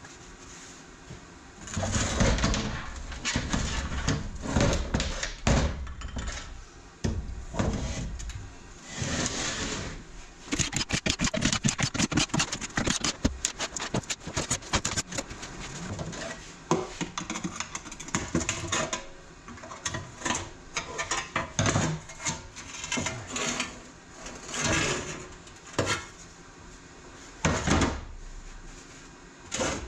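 Irregular clanks, clicks and scrapes of metal transmission parts and hand tools being handled during a TH350 automatic transmission teardown, with a quick run of clicking in the middle.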